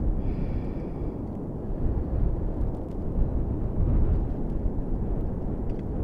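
Gale-force wind buffeting a microphone muffled under a coat: a low, gusting rumble that swells and eases.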